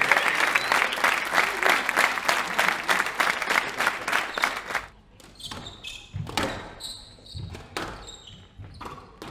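Squash spectators applauding after a point for about five seconds. Then a new rally: a run of sharp cracks as rackets strike the ball and the ball hits the court walls, with a few short shoe squeaks.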